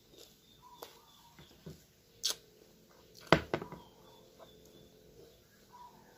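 A few knocks of glass bottles being set down on a table, the loudest pair about three seconds in, with faint chirps in the background.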